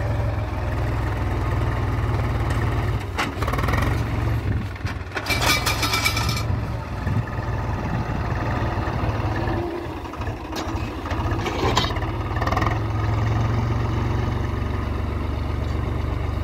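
Swaraj 735 XT tractor's diesel engine running steadily, with a louder, noisier burst about five seconds in, as the tractor works stuck in soft sand.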